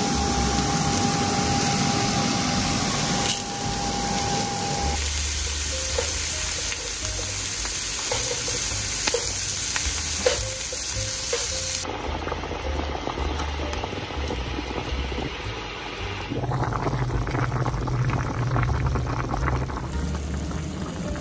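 Food frying and sizzling in a hot pan, a steady hiss that changes abruptly a few times. A pot of chicken bubbles near the end. Light background music plays underneath.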